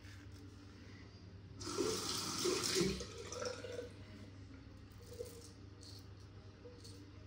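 Water from a bathroom tap running into a sink for about a second and a half, starting about a second and a half in.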